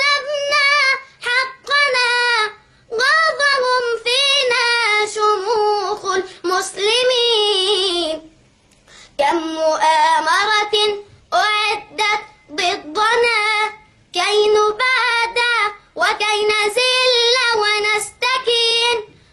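A boy singing an Arabic nasheed solo in a high voice, with long, wavering held notes. He breaks off for about a second near the middle.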